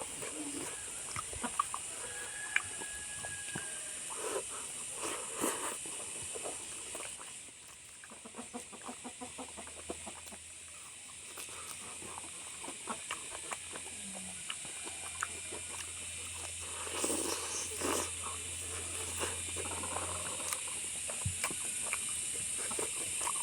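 Chewing and mouth sounds of someone eating pork with anishi, a run of small wet clicks and smacks, over a steady high hiss.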